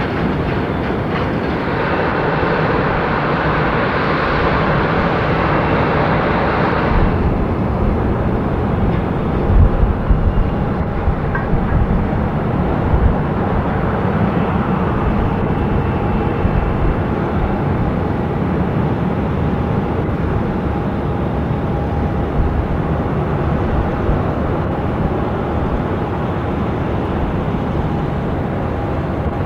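Airbus A319 jet engines running as the airliner lines up and starts its takeoff roll: a steady rumble with a faint steady whine. A hiss in the upper range drops away about seven seconds in.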